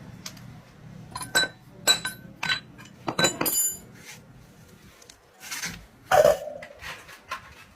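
Metal tools and parts clinking and knocking together, a quick run of sharp strikes with a short ringing after each, then a scrape and a few lighter ticks.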